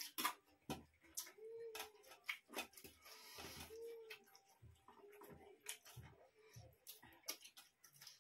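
Faint eating sounds from hand-eating rice and curry: fingers mixing and scooping rice on steel plates, with irregular soft clicks and smacks of chewing.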